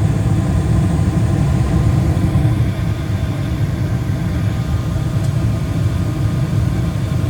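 2006 Carrier gas furnace running at full heat: its five gas burners are burning steadily while the blower and draft inducer motors run. Together they make a steady low rumble.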